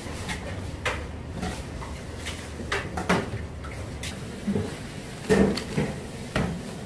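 Irregular clatter of knocks and clicks over a steady low hum, with the loudest knocks about three-quarters of the way through.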